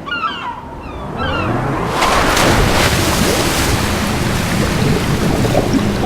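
Ocean surf: a wave breaks about two seconds in and becomes a steady loud rush of water that holds to the end. A few short falling chirps are heard before it.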